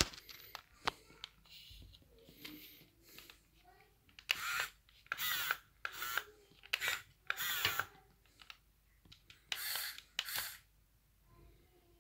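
Small electric gear motor of an RC toy wheel loader whirring in about six short bursts as it works its arm and bucket, the bursts coming in the second half.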